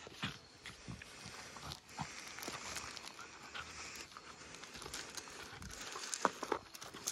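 Puppies tussling and rolling on loose gravel, the stones crunching and scraping under them, with puppy panting. A few louder short sounds come about six seconds in.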